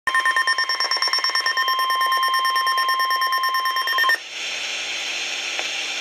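NOAA Weather Radio warning alarm tone, a single steady tone near 1050 Hz with a slight rapid flutter, cutting off abruptly about four seconds in. Radio hiss follows to the end.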